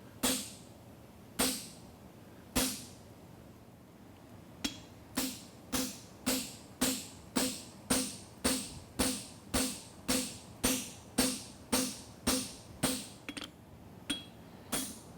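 Farrier's hammer striking a steel horseshoe on an anvil, each blow ringing briefly. Three blows come about a second apart, then after a pause a steady run of about two blows a second, with a few light taps near the end.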